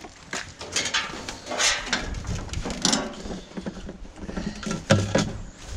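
Irregular clunks, clicks and scrapes of handling as a riding lawn mower is readied for refueling from a gas can, with a heavier thud about five seconds in.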